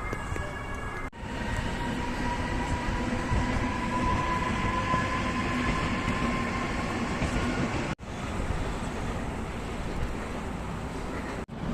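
Steady rumbling mechanical noise with a faint steady whine, cut by three brief drop-outs.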